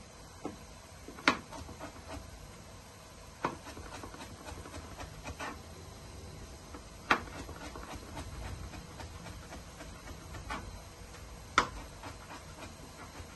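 Chef's knife striking a plastic chopping board while dicing carrots: sharp knocks at uneven intervals, one every second or two, with three louder strikes.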